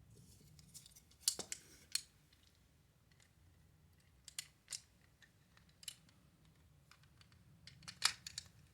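Scattered light clicks and taps of the hard plastic shell of a small toy being handled and fitted back together, a couple of close double clicks about a second in and near the end.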